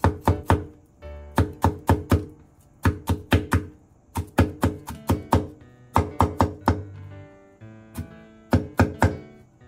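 Chinese cleaver mincing garlic cloves on a wooden cutting board: quick knocks of the blade on the board in bursts of four to six strokes with short pauses between, over soft background music.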